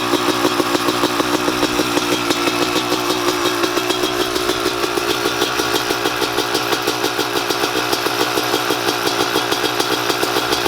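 Kawasaki KX250 single-cylinder two-stroke dirt bike engine idling steadily with an even pulse, freshly rebuilt and running.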